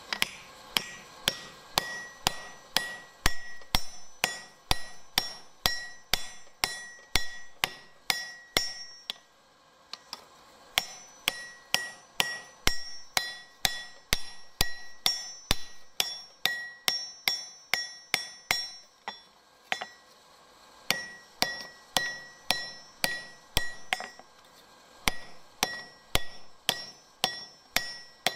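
Hand hammer striking red-hot steel on a grooved cast-iron anvil block, forging it, about two blows a second, each with a ringing ping. The hammering stops briefly twice, about nine and nineteen seconds in.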